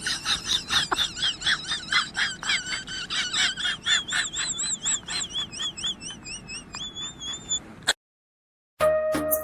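Rapid, repeated high-pitched chirping calls from a small animal, several a second with a wavering pitch. They cut off suddenly near the end.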